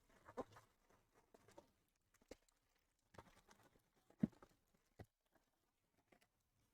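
Faint rustling and light taps of trading card packs and cards being handled on a table, with one louder tap about four seconds in.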